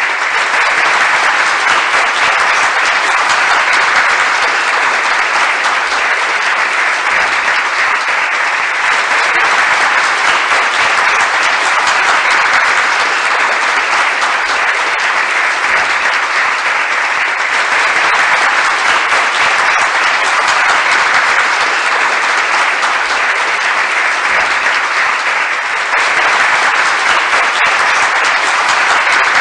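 Steady applause from a large crowd, many hands clapping at once in a dense, even patter, dipping briefly before picking up again near the end.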